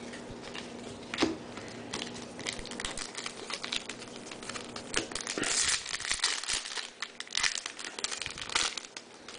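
Shiny plastic trading-card pack wrapper crinkling and tearing as it is handled and opened by hand. There are scattered small crackles and clicks, then two longer spells of crinkling about halfway through and near the end.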